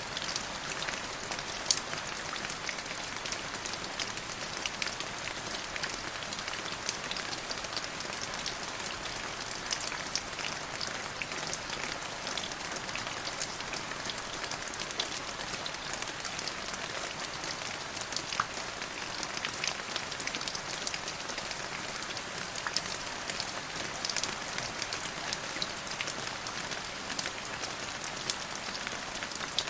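Steady rain falling, an even hiss dotted with many sharp individual drop ticks.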